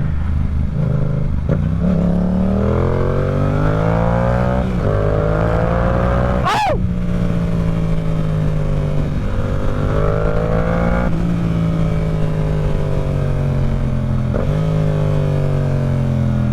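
Yamaha R7 motorcycle's parallel-twin engine pulling through the gears: the pitch climbs, drops at an upshift about four and a half seconds in, and climbs again. It then holds steady before easing off with a slowly falling pitch, with a quick jump in revs near the end.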